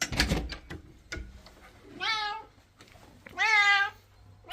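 Bengal cat meowing twice, two rising-then-falling calls with the second longer, after a brief noisy rustle at the start.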